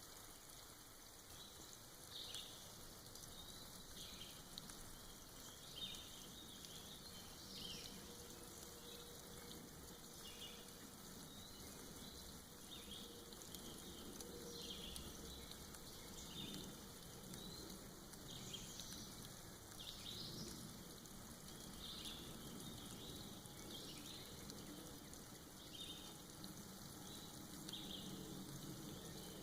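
Soft rain dripping off moss: a faint, steady, crackly patter with scattered light drops throughout.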